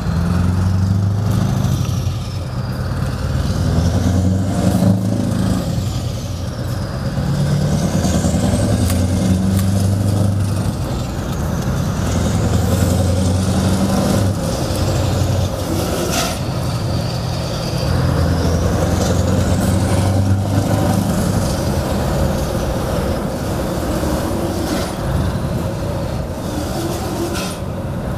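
The 16-litre V8 of a Scania 164L 580 with open exhaust pipes, heard from inside the cab on the move. The deep engine note pulls hard several times, dropping back briefly between pulls, and a high turbo whistle rises and falls with each pull.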